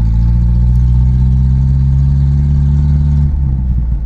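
1982 Datsun wagon's four-cylinder engine running steadily under way; its steady note breaks up briefly near the end.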